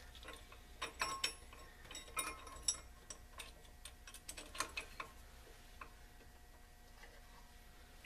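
Ratchet wrench clicking in short irregular runs as nuts are started on the air spring's lower mounting bracket, with a few sharper metal clinks; busiest in the first five seconds, then only an odd faint click.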